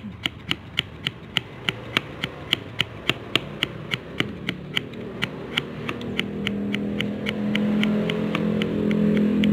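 A cutter blade shaves the lead of a colour pencil to a sharp point in quick, even strokes, about four a second. From about six seconds in, a vehicle engine's drone rises beneath the strokes and grows louder.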